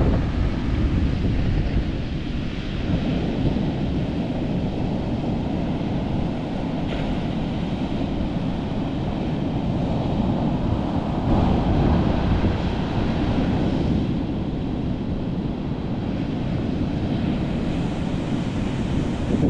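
Ocean surf breaking and washing up the beach, a steady rushing that swells a few times, with wind rumbling on the microphone.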